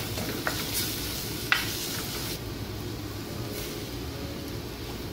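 Onion and spice masala sizzling in hot oil in a clay pot while it is stirred, with a spatula clicking against the pot a few times in the first two seconds.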